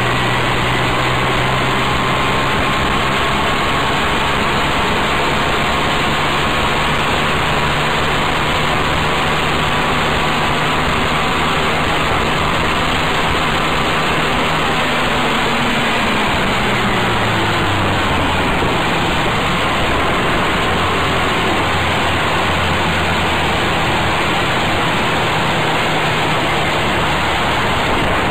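Adly GK125R buggy's 125 cc engine running while driving, over a steady rush of noise. About sixteen seconds in the engine note drops as the buggy slows, then runs on lower and steady.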